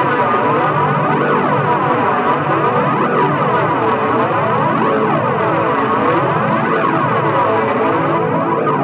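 Dense, distorted instrumental music played through a chain of effects pedals, a sustained wash of tones with a slow flanger-like sweep rising and falling about every two seconds.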